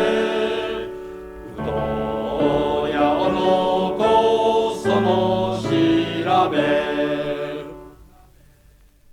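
A choir singing a Japanese school dormitory song (ryōka), breaking briefly about a second in, then carrying on through the closing phrase and fading out near the end.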